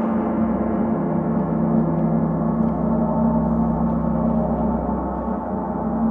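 Gong ringing steadily, a dense wash of many sustained overtones over a strong low hum, with no single fresh strike standing out.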